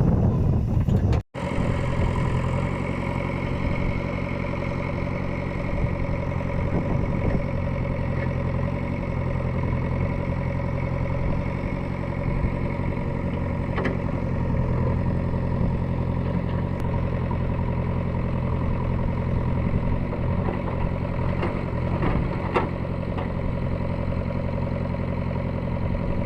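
JCB 3DX backhoe loader's diesel engine running steadily at idle, with a few faint knocks. It is preceded by a brief loud rush of wind-like noise that cuts off abruptly about a second in.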